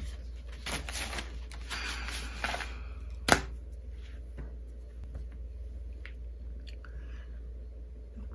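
Rustling and clicking handling noises close to the microphone, with one sharp click about three seconds in and a few fainter clicks after it, over a steady low hum.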